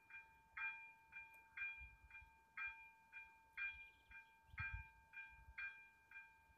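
Railway level-crossing warning bell ringing steadily, about two strikes a second alternating stronger and weaker, signalling that the barriers are down for an approaching train.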